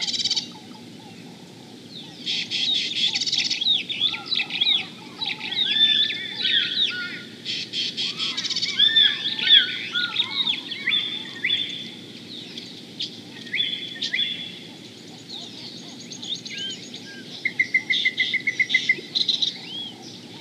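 Several birds calling: repeated bursts of overlapping high chirps and whistled notes, with a quick rattling trill of about ten notes near the end.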